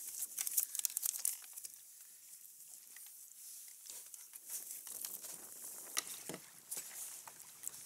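Crinkly rustling and small clicks as an angler handles and unhooks a caught fish, thick for the first second or so, then sparser.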